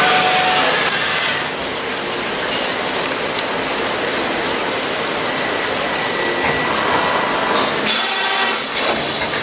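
Workshop machinery running with a steady, dense mechanical noise, and a brighter hiss near the end.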